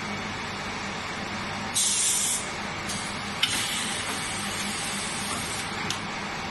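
Shoe-making machine humming steadily, with two bursts of compressed-air hiss from its pneumatics: a short loud one about two seconds in, then a longer, quieter one that opens with a click and ends with a sharp tick near the end.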